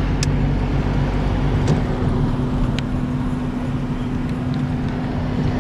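Road and engine noise heard inside a moving car's cabin: a steady low rumble with a constant hum underneath.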